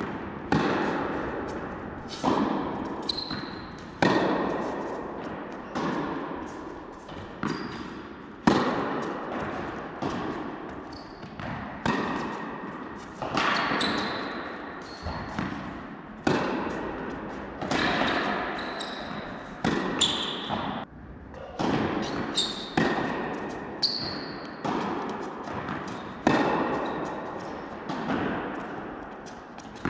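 Tennis rally: racket strikes and ball bounces on the court, a sharp hit every second or two, each echoing in a large indoor hall.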